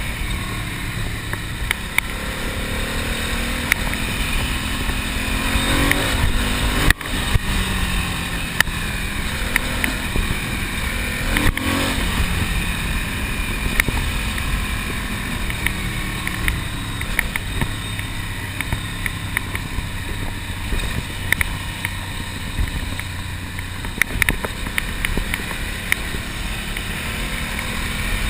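Ducati Monster's air-cooled V-twin engine running while riding, its pitch rising and falling with the throttle and gear changes, over a constant rush of noise.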